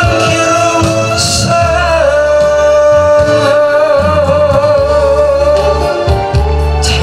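A man singing a Korean popular song into a microphone over instrumental accompaniment, holding one long note with vibrato through the second half.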